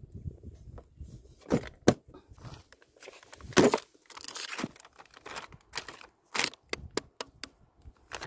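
Plastic bag of frozen shrimp crinkling and rustling as it is handled, mixed with sharp clicks and knocks from a plastic tackle box being shut.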